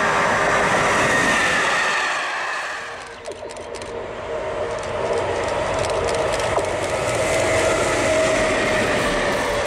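Electric freight trains passing at speed: the rush and rumble of the locomotive and wagons on the rails. About three seconds in the sound dips and gives way to a second train, an electric locomotive hauling container wagons, with a steady hum over the running noise.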